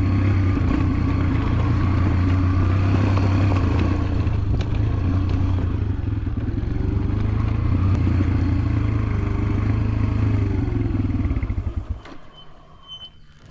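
Motorcycle engine running at low, fairly steady revs with a little rise and fall, then cutting off suddenly about twelve seconds in, leaving much quieter surroundings.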